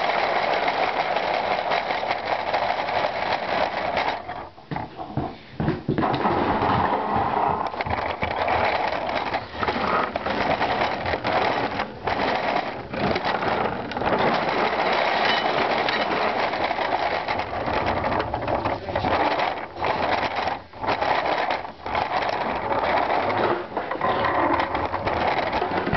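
Plastic-jar rolling toy rattling and rumbling continuously as it rolls across a wooden floor. It goes briefly quieter a few seconds in and again about two-thirds of the way through.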